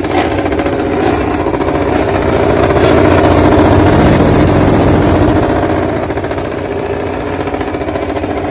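Honda RC213V MotoGP motorcycle's V4 engine running through its Akrapovic exhaust at a fairly steady speed. It grows a little louder toward the middle, then eases off slightly.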